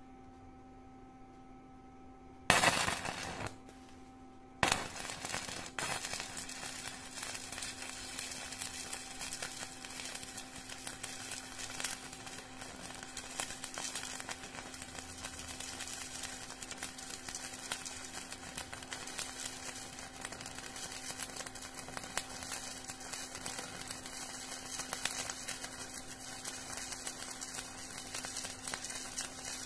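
Stick (shielded metal arc) welding with a 2.6 mm electrode at about 45 A. The arc is struck briefly about two and a half seconds in, drops out, then is struck again near five seconds and crackles steadily with fast, sharp spatter pops.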